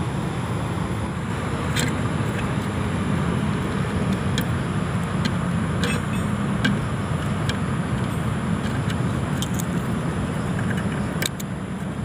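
A steady low rumble like a running vehicle engine, with a few light clicks and rustles of wire being twisted and handled.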